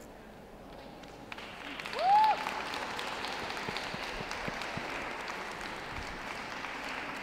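Audience applauding, swelling from about a second in and keeping on steadily. A short, loud whoop, rising then falling in pitch, comes as the clapping starts.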